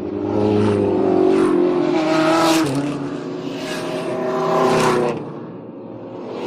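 Car engines passing by one after another. Each swells in loudness and then drops in pitch and fades as it goes past.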